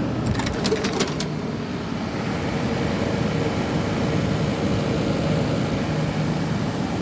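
GE Carry Cool 4,000 BTU air conditioner running with its compressor and fan on: a steady blowing noise over a low hum. There are a few sharp clicks in the first second or so.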